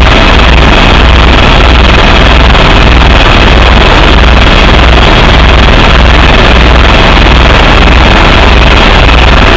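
Helicopter turbine and rotor noise heard from inside the cabin in flight: a very loud, steady rushing sound with a low throb from the rotor blades pulsing at an even rate.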